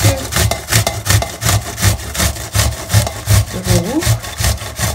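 Onion being grated by hand on a metal box grater: steady rhythmic rasping strokes, about three a second.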